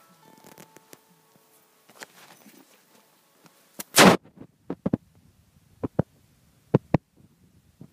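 A loud bump about four seconds in, then sharp clicks in pairs roughly once a second: handling noise from a handheld camera being carried forward.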